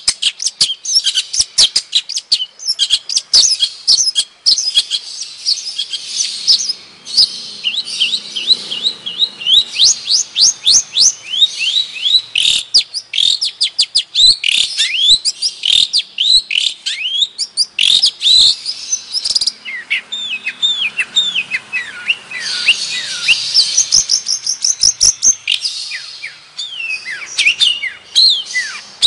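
Long-tailed shrike (cendet, Madura type) singing: a fast, nearly unbroken stream of short high chirps and sweeping whistled notes.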